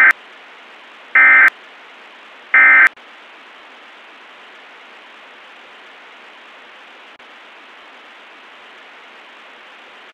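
Emergency Alert System end-of-message data bursts: three short, loud, buzzy digital squawks about 1.4 s apart, the first already underway at the start, marking the end of the alert. After them a steady hiss of static.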